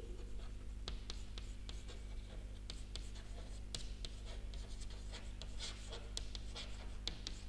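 Chalk writing on a chalkboard: irregular light scratches and taps of the chalk strokes, over a steady low hum.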